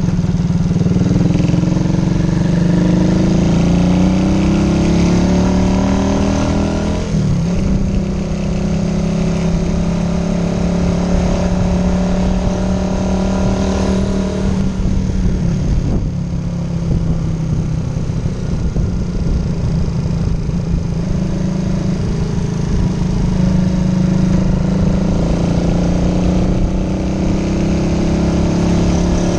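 1978 Honda CG 125's single-cylinder four-stroke engine running under way, its pitch rising as it accelerates, dropping at a gear change about seven seconds in, and rising again near the end, with wind rushing over the microphone.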